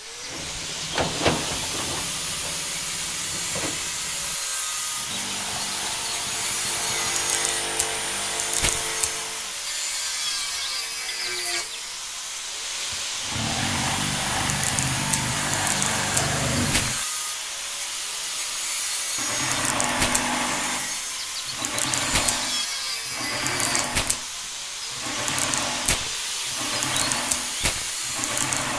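A small motor running with a grinding, scraping noise. From about two-thirds of the way through, it cuts in and out in quick spurts, roughly once a second.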